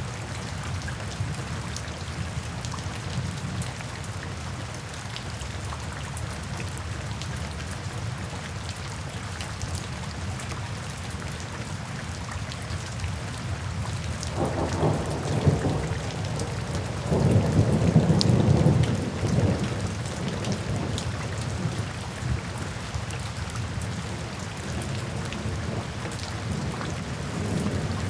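Steady rain falling, with thunder rumbling twice about halfway through, the second roll longer and louder.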